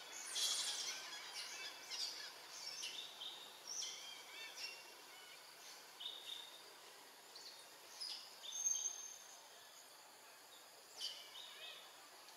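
Forest birds calling in short, scattered chirps and whistled notes over a faint hiss of forest ambience, busier in the first half.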